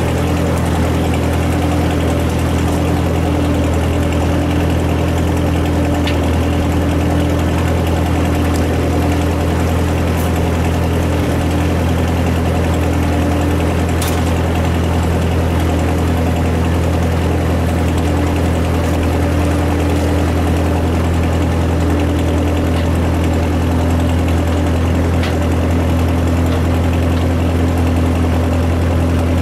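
A 1956 Ford tractor's engine idling steadily, an even low hum with no change in speed.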